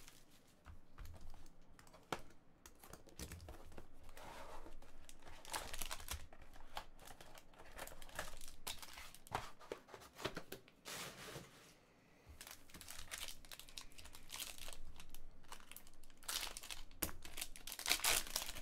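Hands opening a cardboard Panini Prime hockey box and tearing open its foil card pack: a run of irregular crinkling, rustling and small clicks, with the loudest tearing of the foil near the end.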